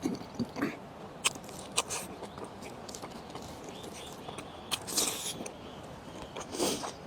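A person chewing and eating mutton, with a few sharp mouth clicks and smacks and a couple of short, louder wet slurping or sucking sounds.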